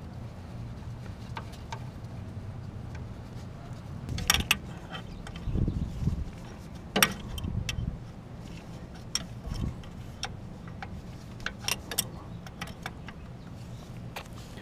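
Scattered sharp metallic clicks and clinks of parts and tools being handled among the hoses and wiring connectors of a car's engine bay, with a couple of dull knocks, over a low steady hum.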